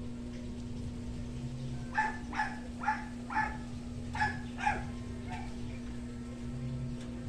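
A dog barking about seven times, the barks about half a second apart with a short pause midway, over a steady low hum.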